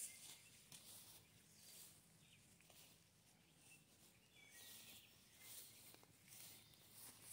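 Near silence outdoors: faint soft rustling and a few short, high bird chirps.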